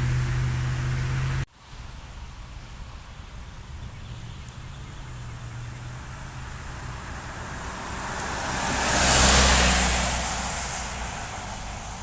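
An idling engine hums for the first second and a half, then the sound cuts to steady outdoor road noise. A vehicle passes by, its tyre noise swelling to a peak about nine seconds in and fading away.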